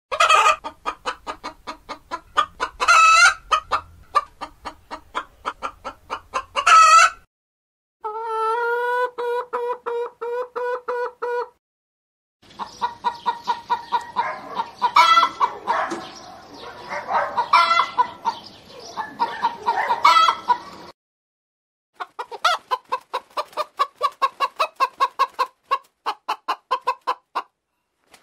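Domestic chickens clucking in quick repeated notes, with a few louder, higher calls among them. This comes as several separate recordings cut together with brief dead-silent gaps. About eight seconds in there is one long drawn-out call, and later comes a stretch of many hens clucking over one another.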